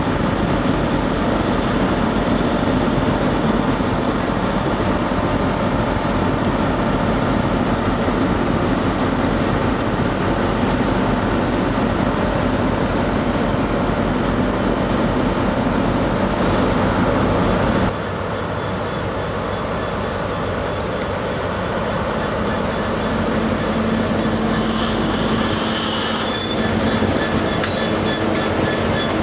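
Diesel trains in a station: a Class 158 diesel multiple unit running as it pulls out, then, after an abrupt change, an EWS Class 66 diesel-electric locomotive with its two-stroke engine running steadily as it hauls wagons past, with a brief metallic wheel squeal near the end.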